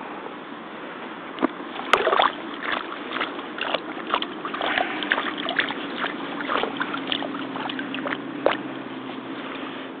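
Pond water splashing and sloshing in irregular bursts as a hand rinses and rubs mud off a rubber hip boot standing in the water, starting about a second and a half in. A faint steady hum runs underneath.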